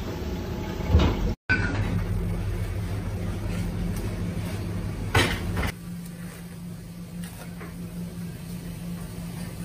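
Steady low hum of a commercial kitchen, with a knock about a second in and a short clatter about five seconds in as prawns are handled on a plastic cutting board; the sound drops out for a moment at a cut and the hum is quieter afterwards.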